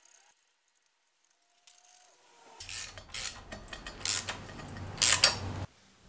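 Hand socket ratchet clicking and rasping in short runs as it runs down the bolts holding a crank pulley holding tool, starting about two and a half seconds in and cutting off suddenly near the end.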